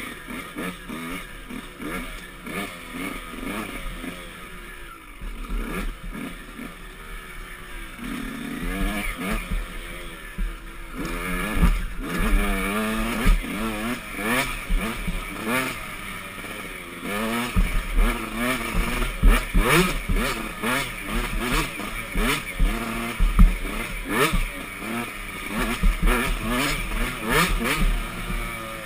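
Dirt bike engine revving up and down over and over as the throttle is worked, with frequent knocks over rough ground. It gets louder and busier about halfway through.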